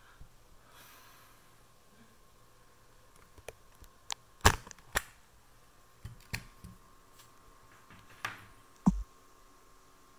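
Scattered sharp clicks and knocks of handling, the loudest about four and a half seconds in, with a dull thump near the end, over a faint steady high tone.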